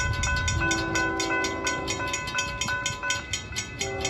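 Railroad crossing warning bells clanging rapidly and steadily, several strikes a second, as the crossing signals flash. A distant train horn sounds about half a second in and again near the end.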